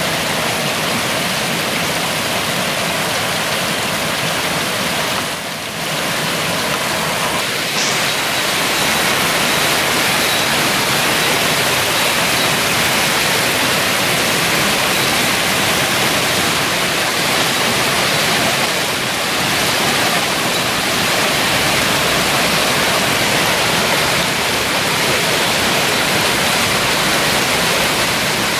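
Hailstorm: hail and rain falling hard onto a paved path, a wooden fence and shrubs as a loud, steady hiss that briefly dips about five seconds in.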